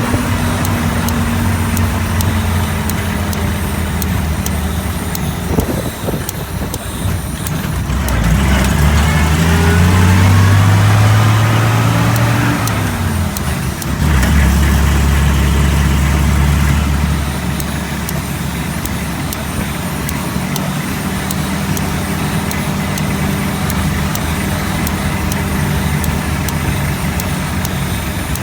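Engine and drivetrain of a 1942 Dodge WC-52 weapons carrier, an inline-six flathead, under way. The pitch climbs as it accelerates near the middle, drops suddenly with a gear change, then settles to a steady run.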